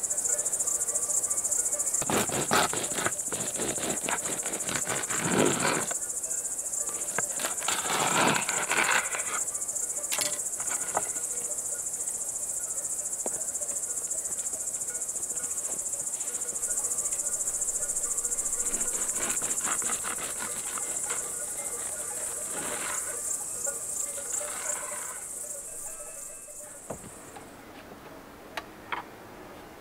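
Crickets chirping in a steady, high-pitched night chorus that stops near the end. A few louder, rough handling sounds close by come and go over it in the first ten seconds and again about three-quarters of the way through.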